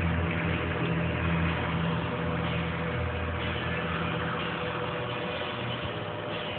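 Steady low machine hum with an even hiss over it, growing slightly fainter toward the end.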